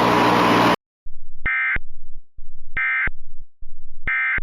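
A hiss cuts off under a second in, then three identical short bursts of Emergency Alert System digital data tones about 1.3 seconds apart: the SAME end-of-message code that closes the alert.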